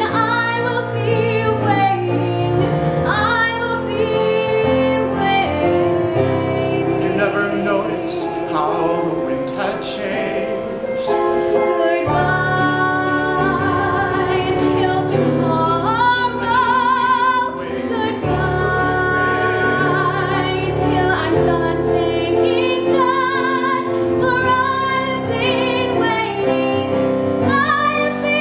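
A woman singing a musical-theatre number with instrumental accompaniment, holding long notes with vibrato.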